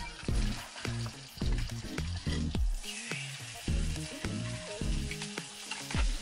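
Butter sizzling as it heats in a small frying pan on a canister gas camp stove, with a low beat pulsing about twice a second underneath.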